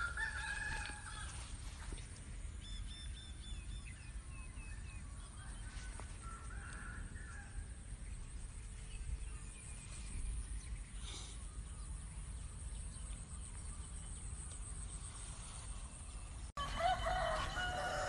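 A rooster crows at the start, with small birds chirping high over a steady low rumble. Louder fowl calls come in near the end.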